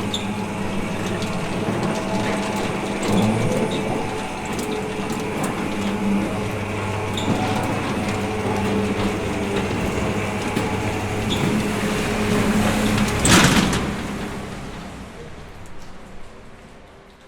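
Electric roller security shutter closing: a steady motor hum under the rattle of the metal slats rolling down. A single loud clunk comes about 13 seconds in, and the sound then dies away over the last few seconds.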